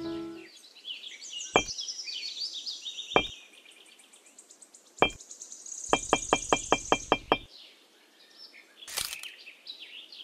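Light, sharp taps of a small hammer on miniature model pieces: three single taps a second or two apart, then a quick run of about eight taps. Birds chirp in the background.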